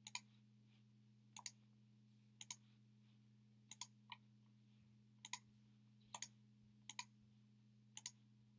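Computer pointer clicks: about eight of them, spaced roughly a second apart, each a quick double tick, over a faint steady low hum.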